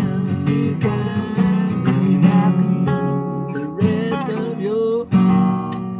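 Live band music in an instrumental passage: acoustic guitar strumming steady chords, with a melody line bending up and down in pitch over them.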